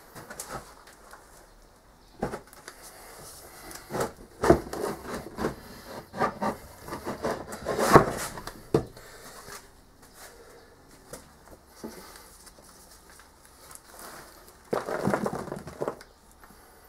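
Wooden sand-casting flask knocked about and set down in a plastic tub of moulding sand: a run of knocks and thuds, loudest about eight seconds in. Near the end, a short rush of crumbling, scraping sand as the top half of the flask is lifted off to break out the casting.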